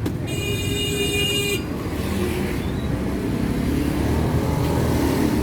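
Road traffic with engines running steadily, and a vehicle horn sounding once for just over a second near the start.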